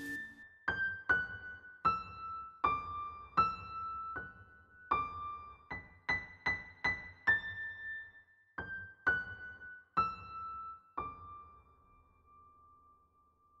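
Background music: a slow melody of single high piano notes played one at a time, the last note held and fading away.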